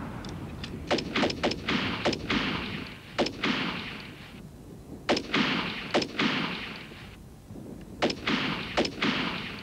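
A dozen or so rifle shots from British Army SA80 rifles with optical sights, fired singly and in quick uneven groups at range targets, each crack followed by a short echo.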